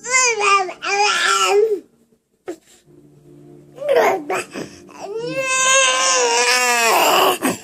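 Baby crying in three loud, high, wavering wails: one at the start, a short one about four seconds in, and the longest near the end.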